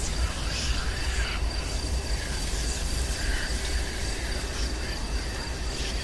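Haunted-house sound-effect ambience: a steady low rumble under a continuous high cricket-like trill, with a few faint brief sounds rising and fading over it.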